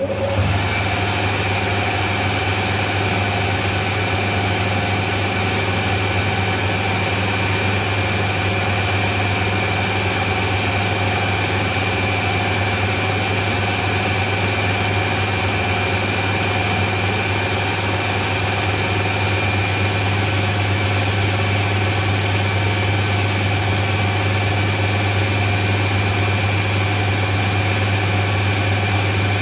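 Taiwanese-built metal lathe running steadily with its chuck spinning, during light finishing cuts on a bar: a constant low hum with a steady high whine over it.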